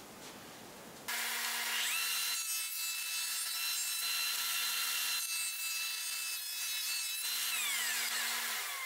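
Jointer switched on, quickly coming up to speed with a high whine, running while a rough board's edge is fed over its cutterhead, then switched off and winding down near the end.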